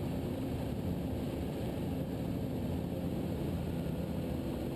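Ikarus C42 microlight's engine and propeller droning steadily in cruise, heard muffled through the headset intercom feed.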